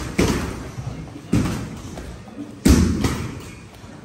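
Blows landing in kickboxing sparring, with boxing gloves and shin guards taking the hits: three heavy thuds, the third, about two and a half seconds in, the loudest.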